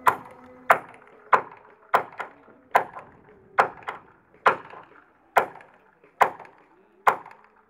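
Hammer blows on the wooden planking of a boat hull under construction: a steady run of sharp knocks, about one every 0.8 seconds, some followed by a lighter second tap.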